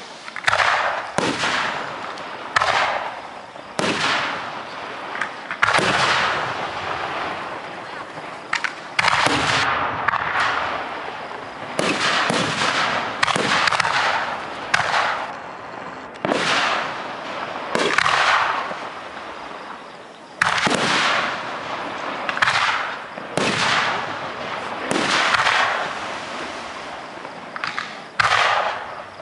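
Aerial firework shells bursting close overhead: loud bangs going off one after another, about one every second or two, each trailing off.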